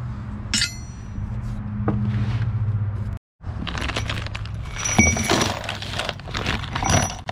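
Steel bolts and washers clinking and rattling together as a bag of mounting hardware is handled and tipped into a cardboard box, with a sharp ringing ping about five seconds in. Before that, one metal clink sounds over a steady low hum, cut off by a brief dropout about three seconds in.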